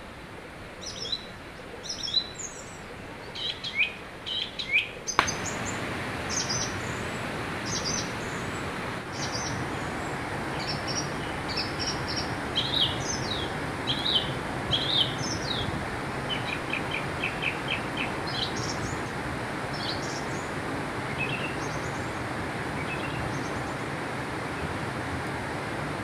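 Small birds chirping and calling over the steady rush of a river. The rush of water jumps louder with a click about five seconds in, then holds steady while the chirps continue.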